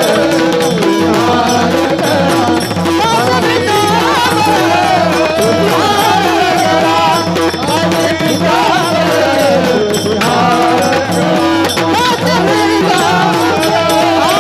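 Marathi devotional kirtan music: a wavering melody over a steady held drone note, with a regular drum beat.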